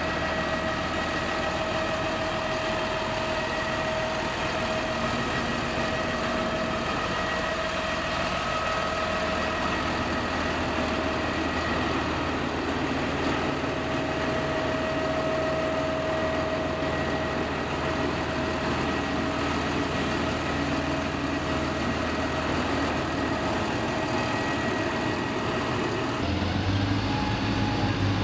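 Fendt 936 Vario tractor's six-cylinder diesel idling steadily, with a steady high whine over the engine note. About two seconds before the end the sound shifts suddenly to a deeper, fuller hum.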